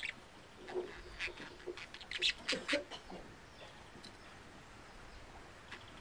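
Birds calling: a quick run of short, sharp chirps between about one and three seconds in, then quieter.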